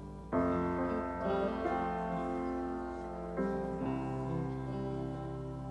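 Instrumental music with no singing: a keyboard plays sustained chords over a steady bass. A new chord comes in about a third of a second in and another at about three and a half seconds.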